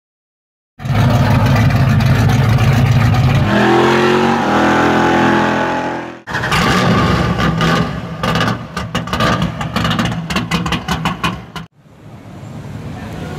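Chevrolet 502 cubic-inch (8.2 L) big-block V8 running loud and low, then rising steadily in pitch as it revs up. After a sudden break it runs on with many sharp cracks over it, and it cuts off abruptly near the end, leaving a fainter background.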